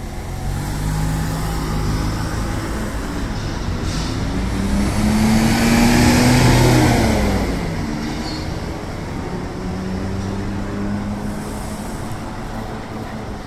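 City bus engine pulling away from the stop, revving up as it accelerates and loudest as it passes close by about six seconds in, then fading into street traffic.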